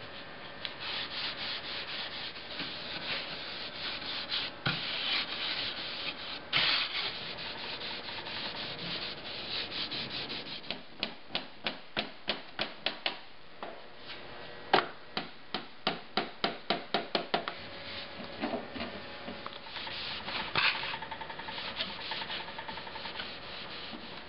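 0000 steel wool with oil and beeswax polish rubbed back and forth over a shellacked wooden clock case, a steady scrubbing hiss. About halfway through, the strokes become separate and rhythmic, around three a second, then go back to continuous rubbing.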